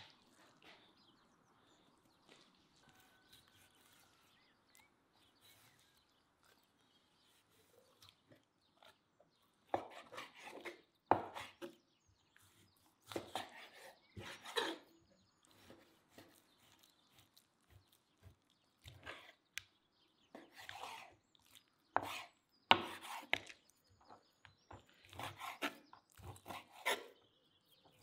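Near-quiet at first, then from about ten seconds in a chef's knife slicing through raw beef on a wooden cutting board, in irregular bursts of strokes with the blade scraping and knocking against the board.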